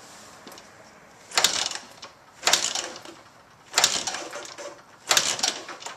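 A 1978 Honda CB550's kick-starter worked four times, about one kick every 1.3 seconds, each a sharp metallic clank and rattle as the engine is turned over for a compression test.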